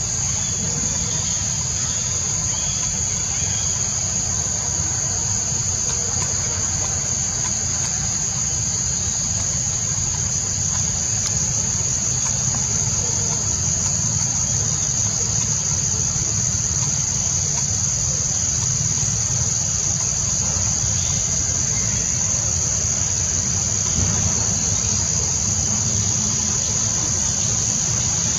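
A steady, high-pitched chorus of insects, unbroken throughout, over a low steady rumble.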